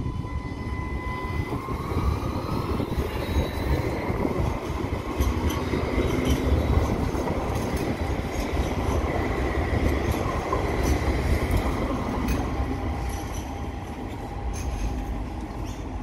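Alstom Citadis light-rail tram pulling away and passing close: its electric drive whines, rising in pitch as it speeds up, then its steel wheels rumble on the rails with scattered clicks. The sound eases off near the end as it moves away.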